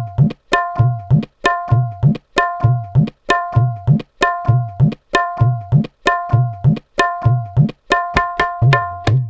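Tabla playing a repeating rhythm about once a second: ringing treble strokes on the dayan and low bass strokes on the bayan that swoop up in pitch. The strokes come thicker near the end.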